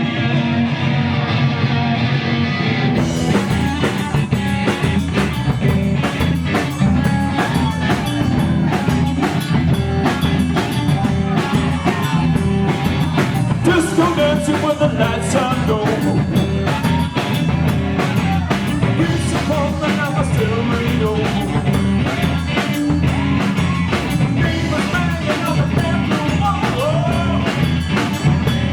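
Rock band playing an instrumental intro: electric guitar alone at first, then the drums and full band come in about three seconds in with a steady driving beat.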